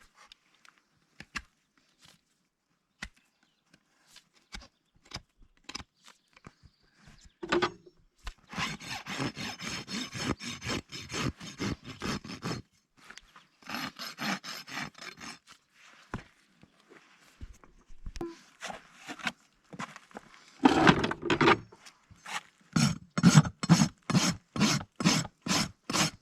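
Farrier's rasp filing a horse's hoof in runs of quick, even strokes, with scattered clicks for the first several seconds and a steady run of about three strokes a second near the end.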